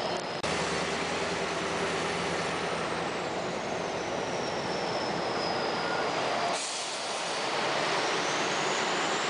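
Scania R560's straight-piped V8 diesel running while the truck drives, heard from inside the cab, with a thin high whistle that slowly falls and then rises in pitch. The sound changes abruptly about half a second in and again about six and a half seconds in.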